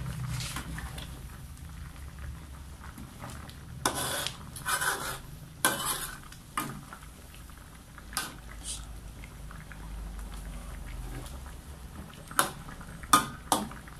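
A metal ladle stirs a thick curry in a metal wok, clinking and scraping against the pan several times: a cluster a few seconds in and a couple of sharp knocks near the end. The curry simmers underneath.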